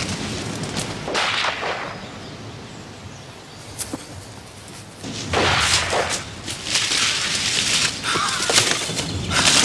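Bracken and branches rustling and swishing as someone pushes through woodland undergrowth, in a few surges, the longest from about halfway in.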